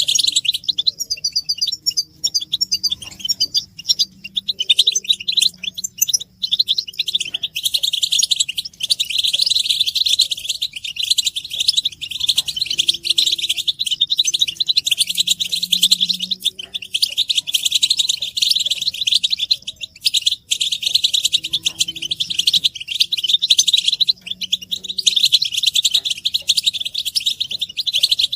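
A group of European goldfinches chattering and twittering non-stop in dense, rapid calls and song: goldfinch mating and excitement calls of the kind used to stir a male into singing.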